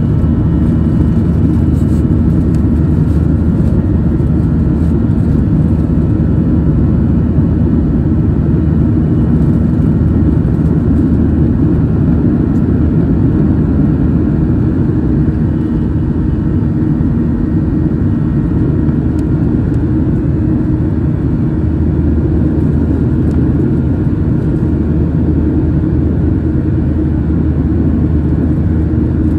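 Steady, loud drone of a Boeing 737's jet engines and rushing air, heard inside the cabin as the airliner climbs out after takeoff. It is deep and even, with a faint steady hum riding on top.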